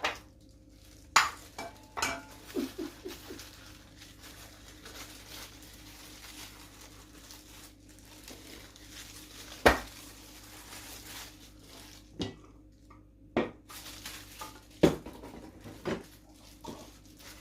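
Kitchenware clinking and knocking: a spoon or utensil against a pot and a glass cup while cooked pear, radish and ginger syrup is scooped out. There are about a dozen sharp clinks, some ringing briefly, with a faint rustling between them in the middle.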